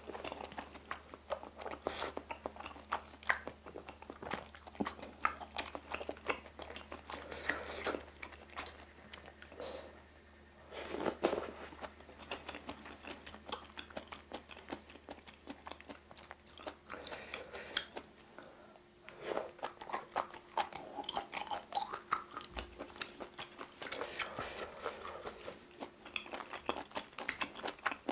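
Close-miked chewing and wet mouth sounds of someone eating spicy stir-fried octopus with thick bunmoja glass noodles: quick irregular smacks and clicks, with one longer, louder burst about eleven seconds in.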